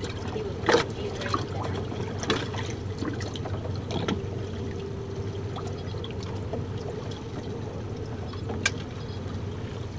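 Water splashing and trickling around a small fishing boat over a steady low hum, with a few scattered knocks.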